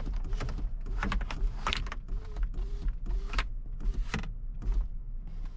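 Car power window motor running in a series of short bursts as the glass is raised in brief jogs, with clicks between them, over a steady low hum.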